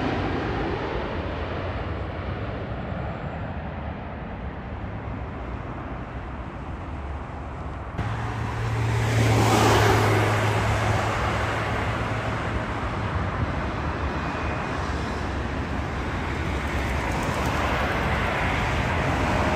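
Jet airliner engine noise on landing approach, a rumble fading away after the aircraft has passed overhead. Then a road vehicle passes close by about nine to ten seconds in, and another approaching airliner's engine rumble builds steadily toward the end.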